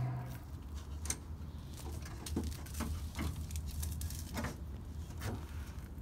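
A handful of light, scattered taps and scrapes as a Koma Alu aluminium composite block-off plate is handled and fitted against a car's front bumper support, over a low steady hum.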